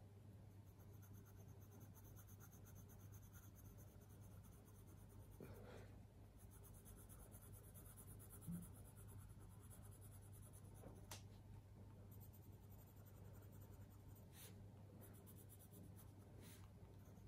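Faint strokes of a colouring marker on cartridge paper, with a few soft clicks and taps scattered through, over a steady low hum.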